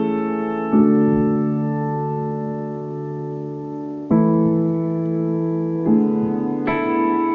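Background piano music: slow sustained chords changing every second or two.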